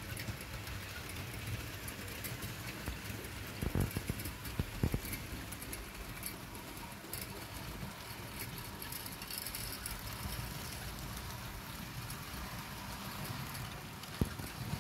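OO gauge model train running on sectional track: a steady rolling rumble from the wheels and motor with fine clicking over the rail joints. A couple of louder knocks come about four and five seconds in.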